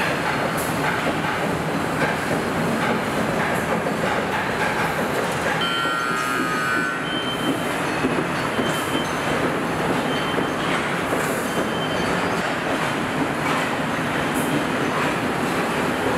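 Assembly-plant floor noise: a steady mechanical din of machinery and moving body carriers, with scattered clanks and clicks. A brief high squeal comes about six seconds in.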